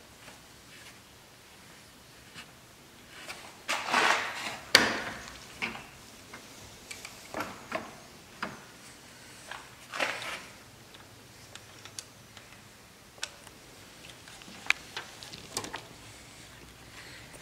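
Hand tools and metal hose clamps clicking and knocking, with rustling, as rubber coolant hoses are fitted and clamped in an engine bay. The clicks are scattered, with louder rustling about four and ten seconds in and a sharp click about five seconds in.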